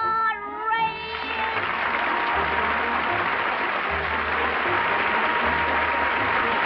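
Studio audience applause with the show's closing music playing under it, starting about a second in as a sung phrase ends.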